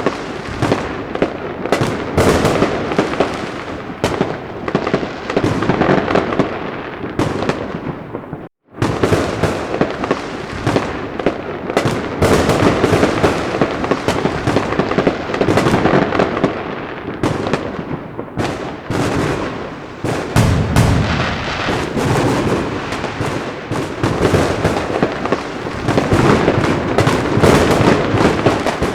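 A dense fireworks barrage: shells bursting and crackling one after another with no let-up. The sound drops out abruptly for a moment about eight seconds in, then the barrage resumes.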